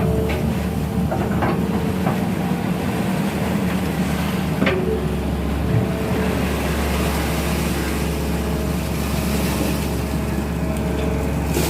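Sany 220 excavator's diesel engine running steadily as it works, with a few short knocks.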